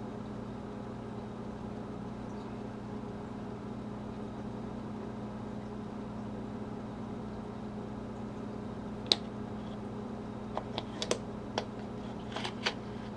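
Steady low hum of room tone, with one sharp click about nine seconds in and a few lighter clicks near the end: a leather pouch's metal snap being opened and a flashlight being drawn out of the pouch.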